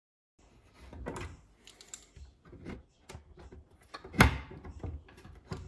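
Wooden corner cupboard door being handled on its bifold hinge: scattered light clicks and knocks, with one sharp, louder knock a little after four seconds in.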